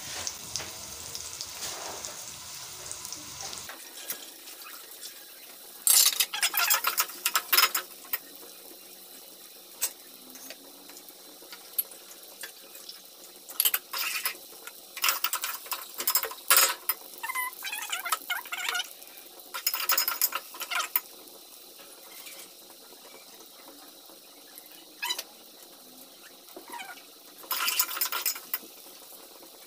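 Sliced onions sizzling as they fry in oil in a metal pot, broken by several bursts of a metal slotted ladle scraping and clattering against the pot as the onions are stirred.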